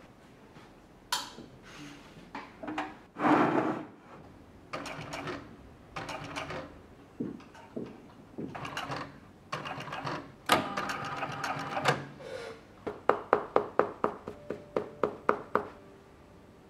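Hand-tool work on a shoe in a shoemaking workshop: a series of uneven strokes and knocks, then a quick run of about a dozen sharp, ringing taps at roughly four a second near the end.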